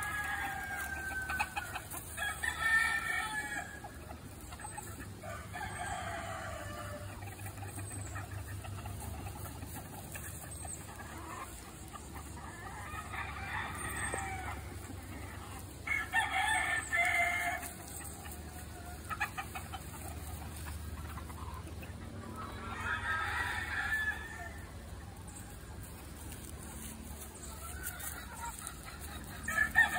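A flock of free-ranging chickens clucking and calling, with louder calls every few seconds.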